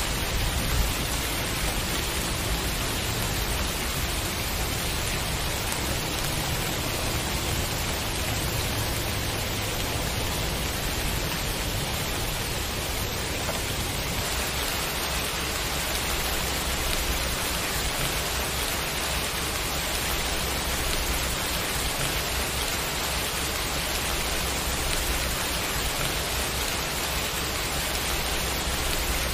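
Steady rain falling in an even hiss, with a low rumble of thunder under it that eases about halfway through.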